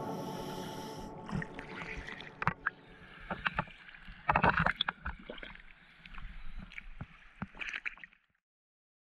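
Water splashing and sloshing around a camera bobbing at the surface after coming up from underwater, with scattered sharp splashes and a louder burst about four and a half seconds in. It cuts off abruptly to silence near the end.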